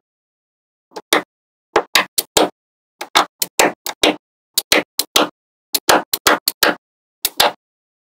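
Small magnetic balls clicking as they snap together: quick, sharp clicks in little clusters of two to five, starting about a second in.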